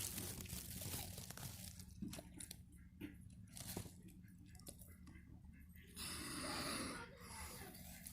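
Tortoise eating: scattered crunching and tearing bites, with a louder rustle lasting about a second around six seconds in.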